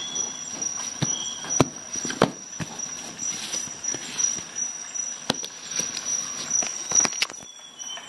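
Irregular clicks and clinks of a Leatherman Tread bracelet multi-tool's metal links being handled, with a few brief metallic rings, over a faint steady high-pitched whine.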